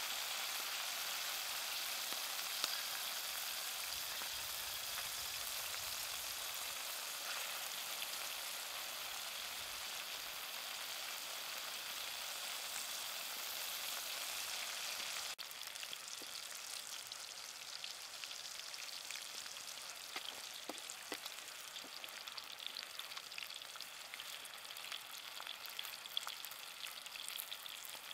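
Cashew worms frying in hot oil in a pan: a steady sizzle with scattered small pops and crackles. It turns a little quieter at a cut about halfway through.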